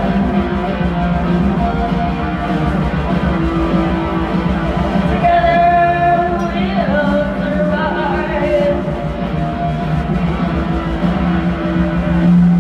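Rock band playing live, with a voice singing over guitars.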